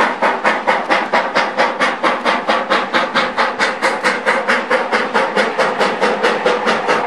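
Ex-Canadian National 0-6-0 steam locomotive No. 7470 working steam as it approaches, its exhaust chuffing in a steady, even rhythm of about five beats a second.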